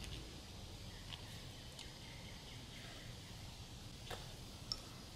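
Quiet outdoor background with a few faint clicks and taps as a rubber grip is twisted onto an aluminium bicycle handlebar, and one brief high chirp near the end.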